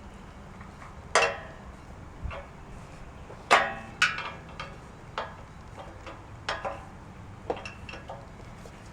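Irregular metallic clinks and clanks, about nine in all and the loudest about a second and three and a half seconds in: a screwdriver and bolts knocking against the sheet-metal parts of a gas grill as it is bolted together.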